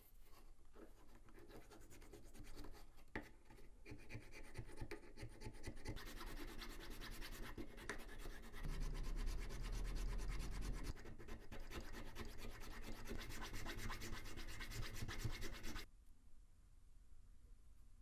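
Needle file rasping inside the tang slot of a small dark knife-handle block in quick rubbing strokes, which grow louder about six seconds in and stop abruptly near the end: the slot is being opened up to fit the kitchen knife's tang.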